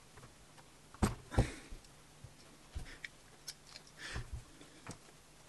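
Small plastic LEGO pieces being handled on a tabletop: scattered clicks and taps, with two louder knocks about a second in and a few lighter ones later.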